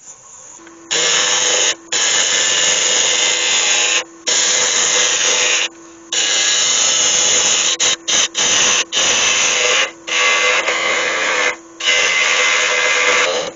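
Turning tool cutting into a spinning oak lid blank on a wood lathe, as a hissing, scraping run of long passes broken by several short pauses. The lathe's steady hum comes through in the pauses.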